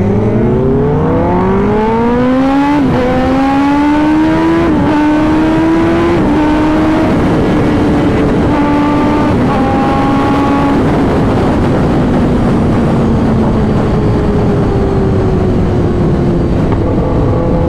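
Kawasaki sportbike engine under hard acceleration from the rider's seat, its note climbing steeply and dipping at quick upshifts about three, five and six seconds in. It then holds a high steady note at speed and eases slowly down as the bike slows, with heavy wind rush throughout.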